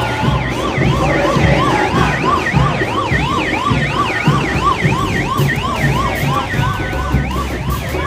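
Electronic siren in a rapid yelp, its pitch sweeping up and down about three times a second without a break, over low irregular thudding.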